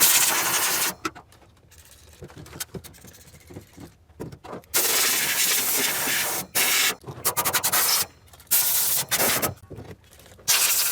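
Aerosol cleaner sprayed in about six hissing bursts of half a second to two seconds each, with faint rubbing and scraping between them.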